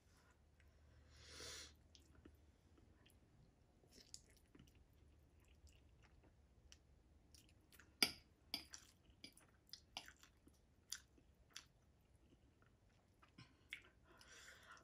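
Quiet eating of instant ramen noodles: soft chewing, with a run of sharp clicks of a metal fork against a ceramic plate in the middle, the first one the loudest. A brief soft rush of noise comes about a second and a half in and again near the end.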